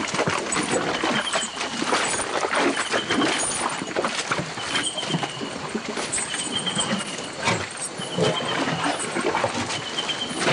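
Elephants moving through forest brush and mud: steady crackling and rustling of trampled branches and leaf litter, with some low animal sounds. A short high chirp repeats about every two seconds behind it.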